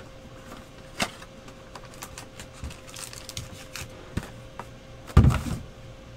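Trading-card box and foil-wrapped pack being handled on a desk mat: light rustling and clicks, a sharp knock about a second in, and a louder thump just after five seconds.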